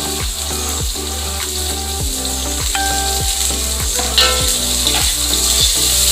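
Vegetables sizzling as they stir-fry in an iron wok, with a metal spatula stirring and scraping against the pan. Background music with a steady beat runs underneath.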